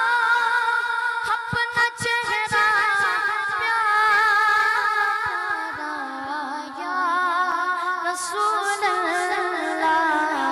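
A Naat sung by a solo voice without instruments: a long drawn-out melodic line with wavering ornaments that steps down in pitch over the second half. Faint clicks sound under the voice in the first few seconds.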